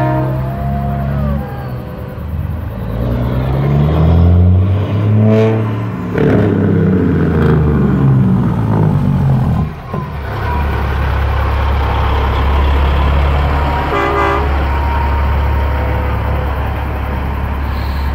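Horn notes stepping up and down in pitch through the first half. From about ten seconds in, a tractor-trailer's diesel engine runs with a steady low rumble as it passes close by, with a short horn toot about fourteen seconds in.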